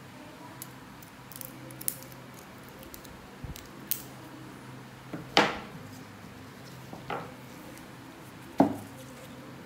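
Metal tweezers clicking and scraping against a thick, overgrown toenail as debris is picked out from under it: a scatter of small clicks and crackles, with two louder sharp snaps about five and a half and eight and a half seconds in.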